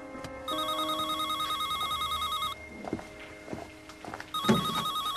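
Electronic telephone ringer sounding twice, a fast warbling trill between two pitches. Each ring lasts about two seconds, with a pause between them that holds a few light knocks.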